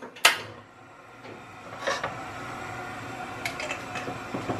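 Gas stove burner being lit: a sharp click just after the start, then the steady rush of the gas flame from about a second in, with a few lighter clicks and knocks over it.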